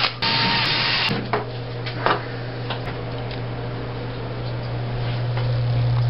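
Black & Decker VPX cordless screwdriver whirring with a thin motor whine for about a second as it backs out a screw from the water heater's front cover, then stopping. After that comes a steady low hum with a few light clicks and knocks.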